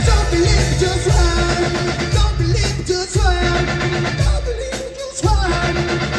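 Live band playing: a male singer over electric guitar, bass, keyboard and drums, with a steady beat.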